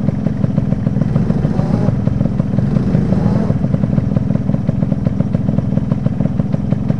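Motorcycle engine idling close by with a steady, rapid thump. From about a second and a half in, a fainter engine revs up and down for a couple of seconds.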